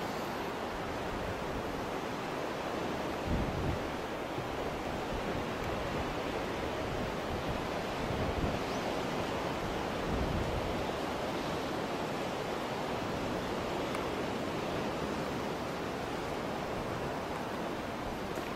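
Steady rushing of wind and surf below a sea cliff, with low gusts of wind buffeting the microphone three times, about three, eight and ten seconds in.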